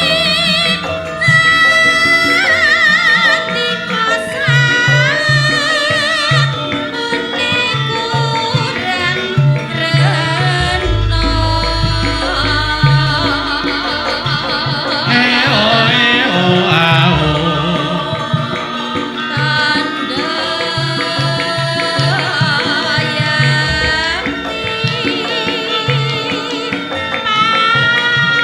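Javanese gamelan music with drumming and a singer's wavering, vibrato-laden melody over it.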